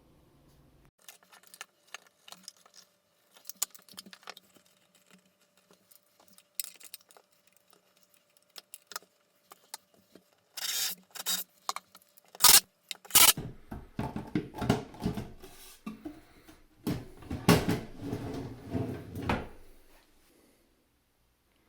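Clicks, knocks and clatter of wood and metal cabinet hardware being handled and fitted, sparse at first and then denser and louder from about halfway in before stopping near the end.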